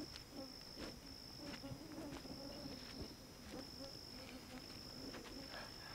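A steady, high-pitched insect trill, with faint scattered crunches of bare feet walking on a gravel road.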